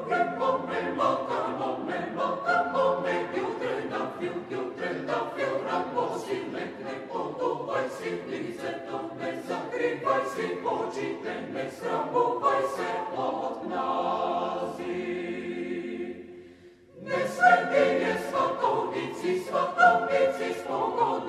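Mixed chamber choir singing a Bulgarian choral song a cappella, men's and women's voices together. About sixteen seconds in, a held chord fades into a brief break, and the singing starts again a moment later.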